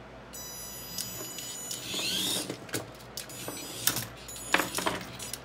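A toy RC car's electric motor whines as it drives across a wooden desk. Light plastic 3D-printed parts click and clatter as it knocks them over, with the sharpest knocks shortly before and after the four-second mark.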